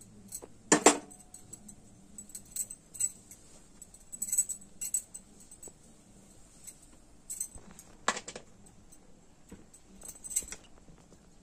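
Light metallic clinking and jingling at irregular intervals, with a sharp knock about a second in and two more near 8 and 10 seconds.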